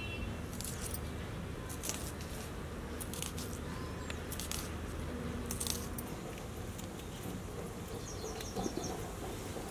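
Scattered small clicks and clinks of hand work as vegetables are cut with a curved, sickle-like blade, over a low steady hum. A quick run of high, bird-like chirps comes near the end.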